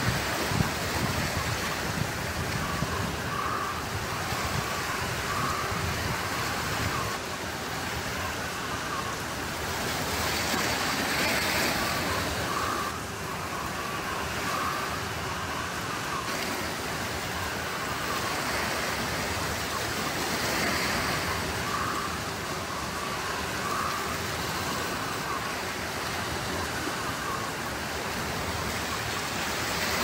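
Small waves washing onto a pebble shore: a steady rush of surf that swells and eases about every ten seconds.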